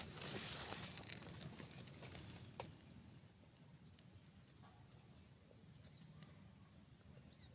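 Faint outdoor ambience: a thin high-pitched insect-like trill that comes and goes, two short falling bird chirps near the end, and light rustling with a few clicks in the first couple of seconds.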